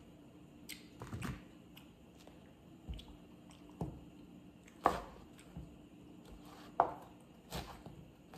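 Pineapple being cut and eaten: a handful of scattered sharp knocks and clicks, the loudest about five and seven seconds in.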